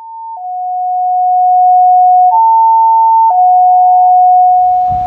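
Fire dispatch alert tones: loud, pure electronic tones alternating between a higher and a lower pitch. A brief high tone is followed by a long low one of about two seconds, then a high tone of about a second and another long low one. The tones fade in from silence at the start.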